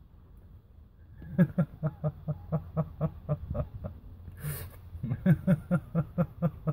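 A person laughing in two bouts of quick, rhythmic "ha-ha-ha" pulses, about five or six a second. There is a short breathy burst between the bouts.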